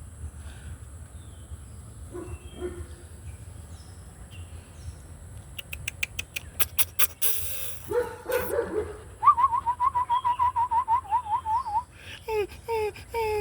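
Young puppies whimpering, ending in a run of short, falling yelps about three a second. Before that come a few clicks and a rustle, then a fast warbling whistle-like trill lasting a couple of seconds.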